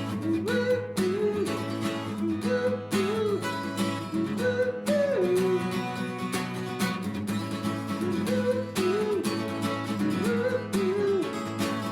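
Music: a strummed acoustic guitar backing with a short melody phrase over it that repeats about every two seconds.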